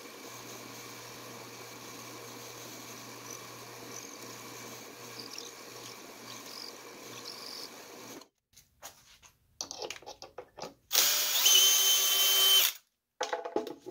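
A 12-speed drill press runs steadily at slow speed while a 3/16-inch bit bores into a wooden figurine's leg. After about eight seconds the hum stops, a few light knocks follow, and then a cordless drill runs in a loud, high-pitched burst of about two seconds near the end.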